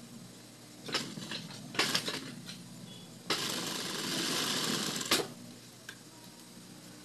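Industrial sewing machine stitching knit fabric: a few short clicks and brief stitch bursts in the first two seconds, then a steady run of about two seconds from about the middle, stopping with a sharp click. A steady low hum sits underneath throughout.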